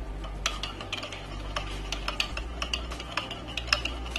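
A spoon stirring yogurt in a glazed ceramic bowl, with many irregular clicks and scrapes of the spoon against the bowl.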